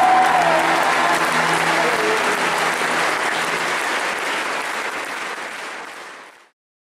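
Concert audience applauding, with a few held low notes from the end of the song ringing under the clapping for the first few seconds. The applause fades and then cuts off abruptly near the end.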